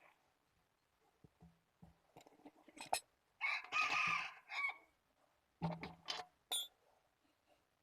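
A rooster crowing once, a single drawn-out call a little past the middle that falls away at the end, with scattered light knocks and clicks before and after it.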